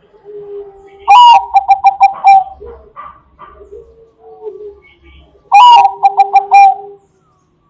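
Bangkok-line zebra dove (perkutut) singing: two loud song phrases about four seconds apart, each a higher opening note followed by a quick run of short staccato coos. Softer, lower coos come between the phrases.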